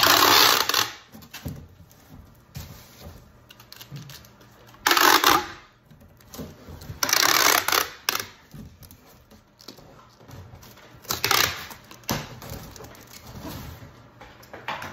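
Clear packing tape screeching off a handheld tape gun as it is run along a cardboard box, in four loud strips a few seconds apart, with clicks and rattles from the dispenser between them.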